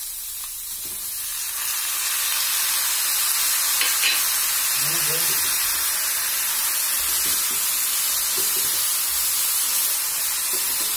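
Chopped tomatoes and green chilies sizzling as they hit hot mustard oil with carrots in a pan. The steady sizzle swells about two seconds in and holds, with a wooden spatula stirring the vegetables near the end.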